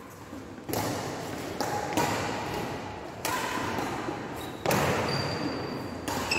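Badminton rally: rackets strike the shuttlecock four times at an even pace, about 1.3 seconds apart, each hit echoing in a large hall. A couple of short high squeaks come in the second half.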